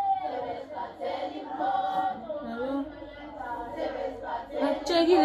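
A group of women singing a Zulu song together, several voices overlapping, with a louder voice coming in near the end.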